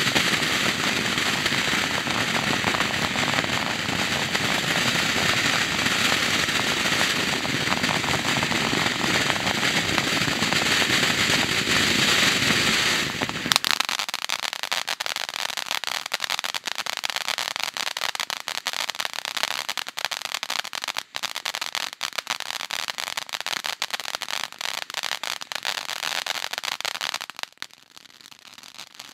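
Howler Fountain consumer fountain firework burning with a loud, steady rushing hiss. About thirteen seconds in it switches abruptly to dense crackling, which stops shortly before the end as the fountain dies down.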